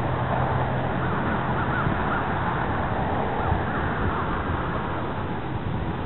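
Crows cawing, a run of short calls between about one and four seconds in, over steady wind noise and a low hum.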